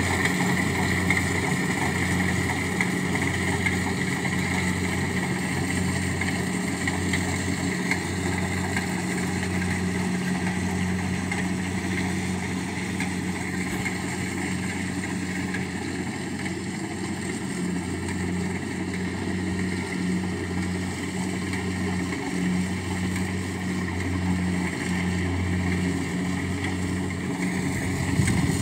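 Rice combine harvester's diesel engine running steadily under load as the machine cuts and threshes rice. It is a constant drone with a slow, regular throb.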